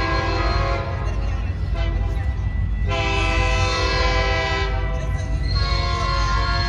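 Locomotive air horn blowing long blasts: one ends just under a second in, another sounds about three seconds in, and a third starts near the end. Under the horn runs the train's steady low rumble.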